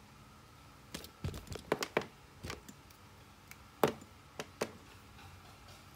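Light clicks and taps of eyeglass frames being handled, about a dozen irregular ones over a few seconds, the loudest near the end.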